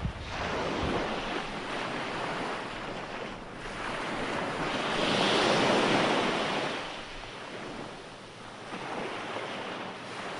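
Sea waves breaking and washing up onto the shore. One wave swells to its loudest about halfway through, then the wash eases off and the next wave begins to build near the end.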